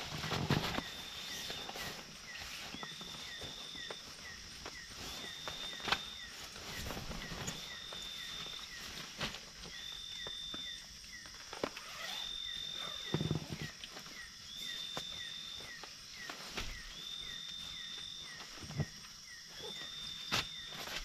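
Insects calling steadily: a high buzzing note repeating about once a second, with quicker short falling chirps between. Over it, sleeping-bag and blanket fabric rustles, with a few louder knocks and thumps as the bedding is laid out on the tent floor.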